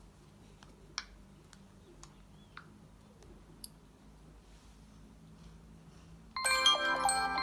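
A few faint clicks, then about six seconds in a smartphone alarm tone starts loudly: a bright chiming melody like a glockenspiel or marimba.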